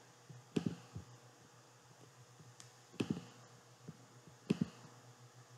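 Several computer mouse clicks, a second or two apart and some in quick pairs, over a faint steady hum.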